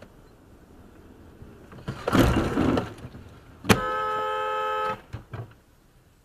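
A car horn sounds once as one steady blast of a little over a second, starting a little under four seconds in. About two seconds in there is a loud, rushing burst of noise lasting about a second.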